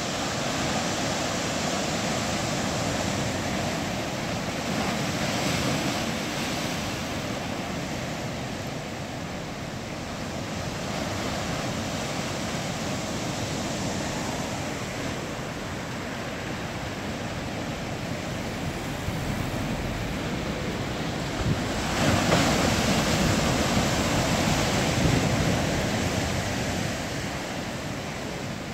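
Sea surf breaking and washing over shoreline rocks: a continuous rushing roar that swells and ebbs with the sets, loudest as a bigger wave surges in about three-quarters of the way through.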